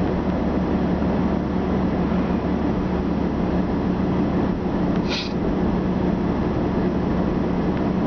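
Car engine and tyre noise heard from inside the cabin while driving at steady speed: an even drone with a constant low hum.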